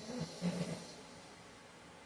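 A man snoring in his sleep: one loud snore in the first second, a low buzz with a hissing breath, peaking about half a second in, then quiet breathing.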